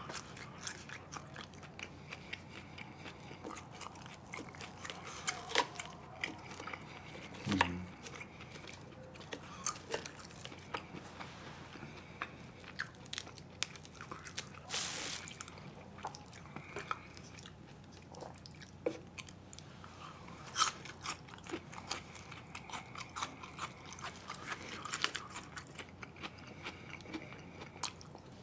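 A person chewing and biting food close to the microphone: irregular wet mouth clicks and soft crunches, with a brief louder rustle of noise about halfway through.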